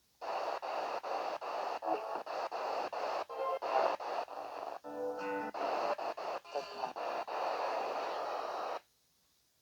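Music from an FM radio broadcast, hissy and broken by quick regular gaps, stopping suddenly near the end.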